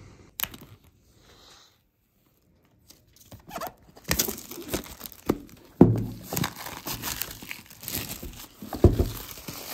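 Plastic shrink-wrap being torn off a laptop box and crinkled by hand. The dense crackling starts about four seconds in, with a few sharper, louder crackles.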